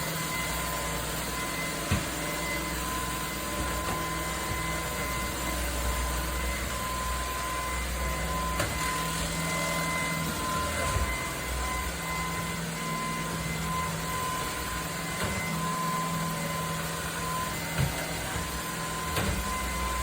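Shark PowerPro cordless stick vacuum running steadily during a cleaning test, a constant rush of airflow with a thin high motor whine, and a few sharp ticks from bits being picked up.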